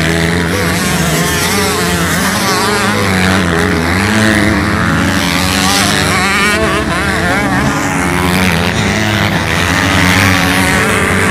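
A pack of motocross dirt bikes racing through a corner, several engines revving at once, their pitches rising and falling over one another as riders throttle off and back on.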